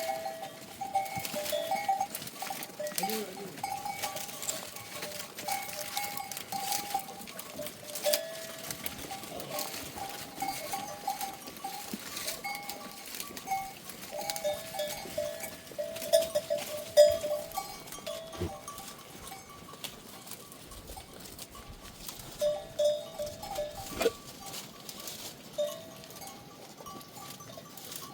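Bells on a flock of goats clanking and ringing on and off as the animals move.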